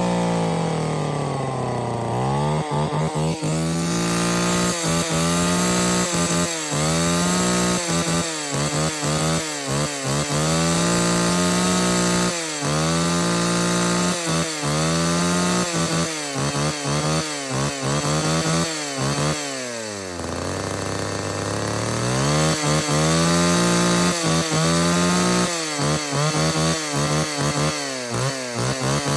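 Two-stroke chainsaw running at high revs, the throttle let off and snapped open again and again so the pitch dips briefly many times. It drops to idle twice, near the start and about twenty seconds in, before revving back up.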